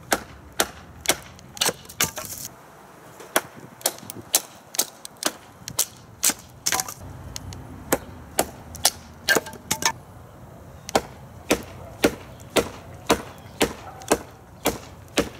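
TOPS Bushcrafter Kukuri 7 kukri chopping into the top of an upright hardwood board. Sharp wooden chops come at about two a second, with two short breaks, as chunks split away.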